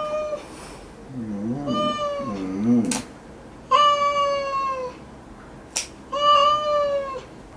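Long-haired orange cat meowing in protest four times, each cry held about half a second to a second and falling at the end, with a low wavering moan under the second cry, while its claws are trimmed. Nail clippers snip twice, giving sharp clicks near 3 s and 6 s in.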